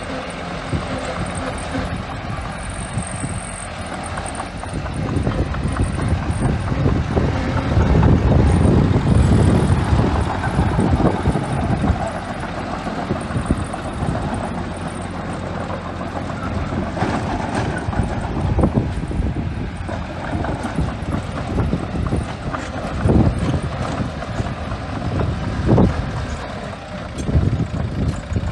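Small bulldozer's diesel engine working as it pushes and spreads sand, a heavy rumble that swells louder about a third of the way in.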